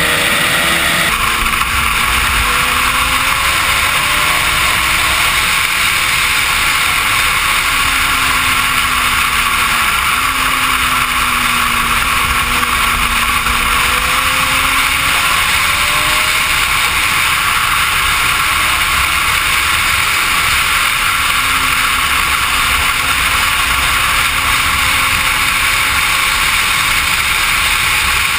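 Steady rush of wind on the microphone of a helmet or bike camera as a Suzuki GSX-R sportbike is ridden at highway speed. The inline-four engine's note sits faintly underneath, its pitch drifting gently up and down with the throttle.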